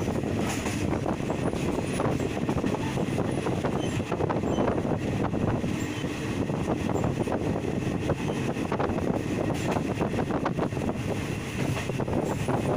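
Passenger train running along the track, heard from a carriage window: a steady rumble of wheels on rails with irregular clicks and knocks from the carriage and track.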